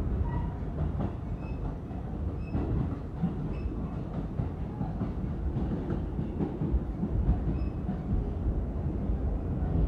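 Inside a moving R46 subway car: steady low rumble of the car running over the rails, with some clacking of the wheels.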